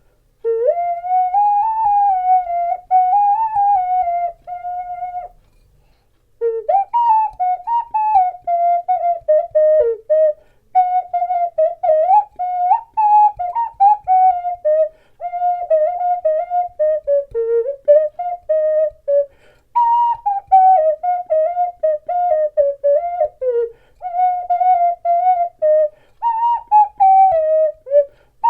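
Ceramic ocarina playing a melody in clear, pure single notes, in phrases of a few seconds separated by short breaths, with a pause of about a second some five seconds in.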